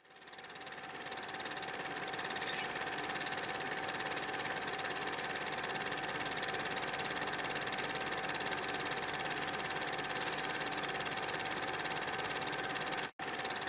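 Steady mechanical whirring drone with a rapid fine rattle and a constant hum tone, fading in over the first second or two and cutting out for an instant near the end.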